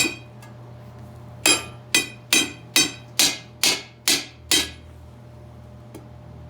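Hammer blows on a steel split rim while seating a tire, each strike ringing like metal. One strike at the start, then after a pause a run of eight, about two a second.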